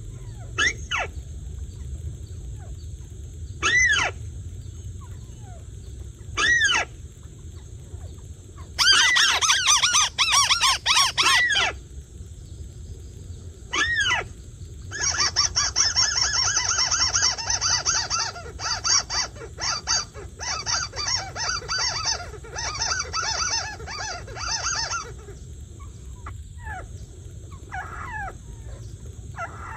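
Bird calls played as a lure from an electronic bird caller set beside a trap: single calls a few seconds apart, a dense burst of calls about a third of the way in, then a long run of rapid chattering calls, tailing off to fainter calls near the end.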